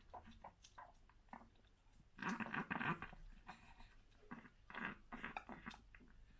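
Chihuahua eating wet meat food from a bowl: faint, irregular wet smacking and chewing, bunched into busier spells about two seconds in and again around five seconds in.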